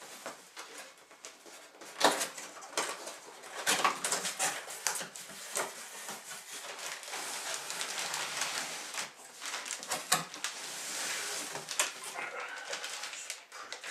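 Cardboard box being opened and handled: flaps and end pieces clicking and scraping, with a longer rustle of plastic wrapping near the end as a foam model-plane fuselage is slid out.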